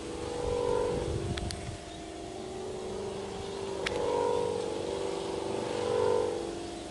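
Bamboo whistle (sawangan) on a flying Madurese kite sounding a low hooting drone of more than one pitch, swelling and fading three times as the wind catches it. Wind rumbles on the microphone in the first two seconds, with a few faint sharp clicks.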